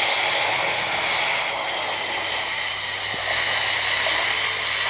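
Loud, steady hiss and sizzle as rasam liquid is poured into a steel pan of hot tempering oil with mustard seeds, curry leaves and a dried red chilli. This 'sarr' sound on pouring is, by the cook's account, the sign that the rasam will turn out well.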